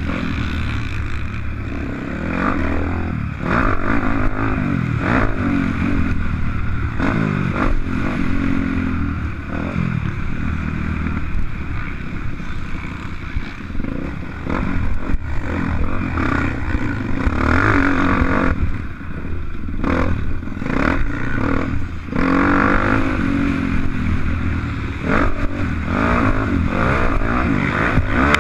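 Motocross dirt bike engine revving up and down over and over, its pitch climbing and dropping every second or two as it accelerates and backs off around the track.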